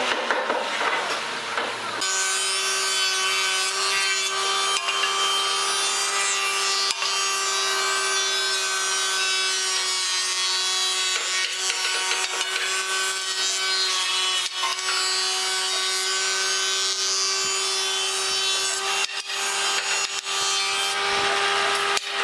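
Thickness planer on a combination woodworking machine running steadily while planing wooden boards. Its cutterhead gives a steady whine over the noise of shavings being cut. About two seconds in, this takes over from a different machine sound.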